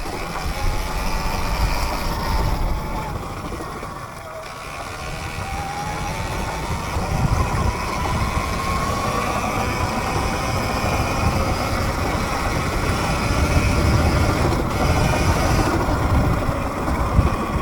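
A dirt bike ridden along a trail: its motor whine glides up and down with the throttle over a steady low rumble.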